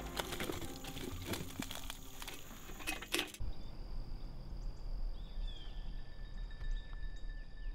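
Metal clicks and knocks with rustling as a hunter climbs into a metal tree stand. About three seconds in this cuts off to quiet evening woods: a steady high insect whine with a few short bird chirps.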